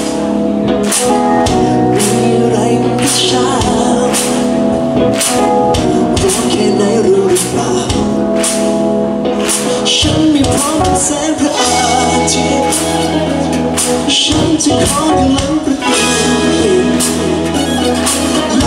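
Live pop band playing, with a drum kit keeping a steady beat under a male lead singer singing in Thai.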